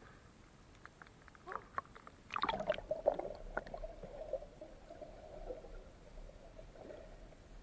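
A few faint clicks, then a sudden splash a little over two seconds in, followed by several seconds of water gurgling and bubbling around the microphone as the camera goes under water.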